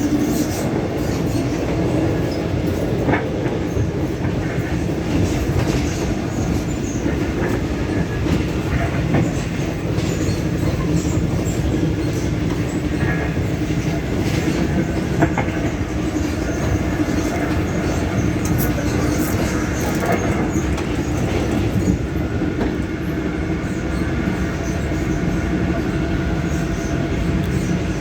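Steady running noise inside a Taiwan Railways EMU600 electric multiple unit trailer car. The motor car's traction-motor sound is relayed through the cabin PA speakers, which were accidentally left switched on. It is a continuous hum with a steady tone and a few sharp clicks from the track.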